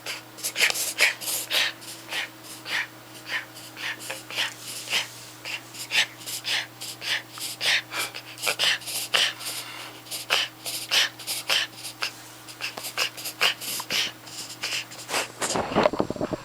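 Small puppy in a paroxysmal breathing episode: rapid, noisy, forced breaths about three a second, kept up for many seconds. The owner suspects a reverse sneeze. The run breaks off near the end.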